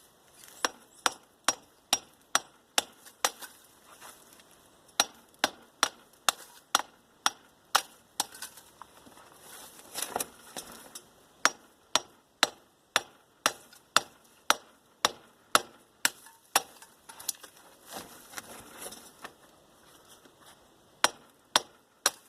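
A hammer striking the copper winding bars of an electric motor armature to knock them loose from their slots, steady sharp strikes about two a second. The strikes pause briefly a few times, with a stretch of scraping and rattling about halfway through.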